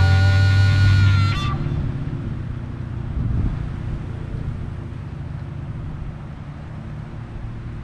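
Background music ends on a held chord about a second and a half in. A low road rumble from a passing car follows and slowly fades away.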